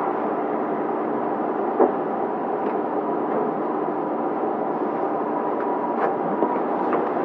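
Cabin noise aboard a JR Shikoku 2700 series diesel limited express under way: a steady hum of the diesel engines and running noise, with a single sharp knock about two seconds in.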